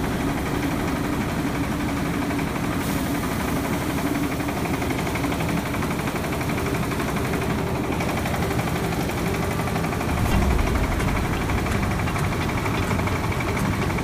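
Rice mill machinery running steadily under load as grain is fed through the huller and pours out of the chute; a continuous mechanical drone, getting a little louder about ten seconds in.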